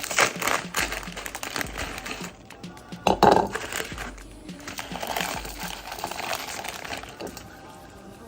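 Music with many sharp clinks and clatters over it, loudest at the start and about three seconds in.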